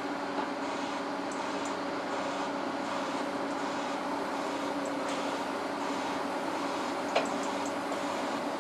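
Heavy construction machinery (a crawler crane and casing-drilling rig) running with a steady hum, with one sharp knock about seven seconds in.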